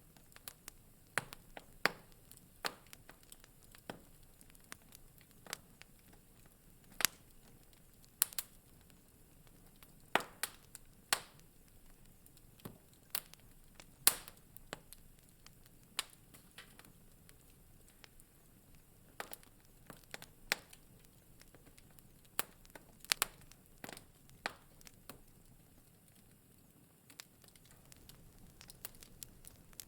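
Wood fire in a fireplace crackling: irregular sharp pops and snaps over a faint soft hiss, a few of them much louder than the rest, with a quieter spell near the end.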